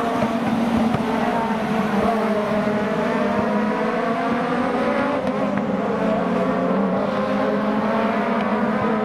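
A bunch of Aussie Racing Cars racing past together, several engines at high revs heard at once, their overlapping notes wavering up and down in pitch as they run through a corner.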